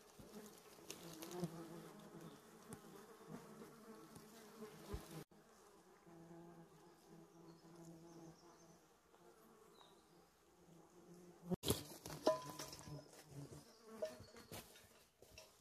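Flying insects buzzing, a faint low hum that comes and goes. Around twelve seconds in there are a couple of sharp knocks and some rustling.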